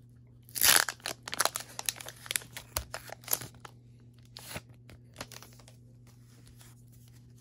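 A Pokémon card booster pack's foil wrapper torn open with one sharp rip about half a second in, followed by crinkling of the wrapper as the cards are pulled out. It goes quieter from about four seconds in, with only a few light clicks of cards being handled.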